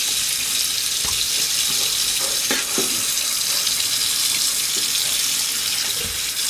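Kitchen tap running steadily into a sink while goat meat is washed, with a few light knocks about two and a half seconds in.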